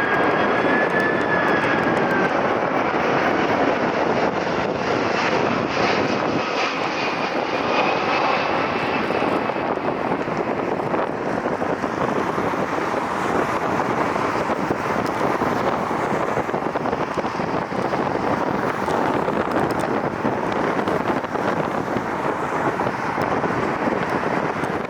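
Jet airliner engines: a steady rush of noise with a faint high whine over the first several seconds, the rush slowly easing after that.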